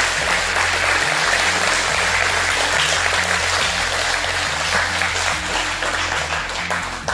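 Audience applauding, the clapping dying away at the very end.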